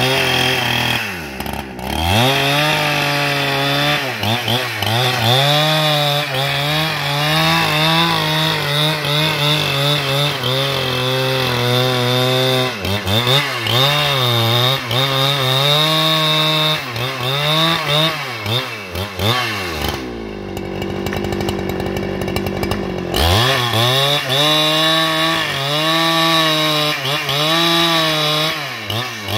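Husqvarna 395XP 94 cc two-stroke chainsaw with a 1.20 m bar ripping a log lengthwise into planks, its engine speed repeatedly dipping and recovering under the load of the long cut. A little past the middle it drops to a lower, rougher note for about three seconds, then is throttled back up.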